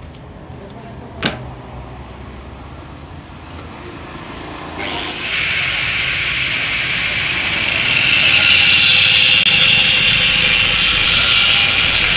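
Angle grinder cutting into the steel shell of a Yamaha RX-King muffler to split it open: one sharp knock about a second in, then from about five seconds in a steady, harsh, hissing grind that grows louder about three seconds later.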